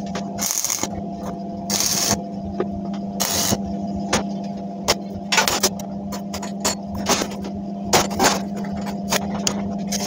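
Metalworking on a steel stove frame: short scraping strokes and many sharp clicks and taps on metal, over a steady electrical hum.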